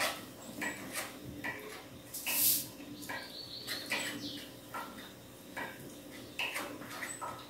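Ballpoint pen writing on a paper notepad: short, irregular scratching strokes over a faint steady hum, with a louder hissing rustle about two and a half seconds in.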